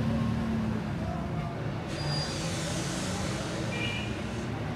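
Street traffic: a heavy vehicle's engine running steadily, with a hiss that starts suddenly about two seconds in and lasts a couple of seconds.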